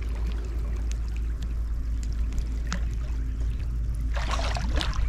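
Water sloshing and splashing over a steady low rumble of wind on the microphone, with a louder splash from about four seconds in.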